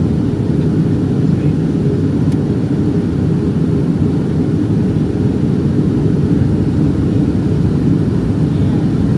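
Steady cabin noise inside a Boeing 757-232 in flight: a loud, even, low rush of airflow and engine drone with no distinct events.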